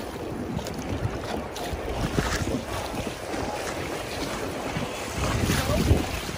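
Wind buffeting the microphone over choppy lake water lapping and splashing, with a stronger gust near the end.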